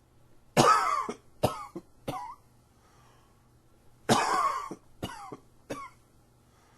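A man coughing in two bouts about three and a half seconds apart. Each bout is one loud cough followed by two shorter, quieter ones. The coughing is set off by an allergy tickle in the throat.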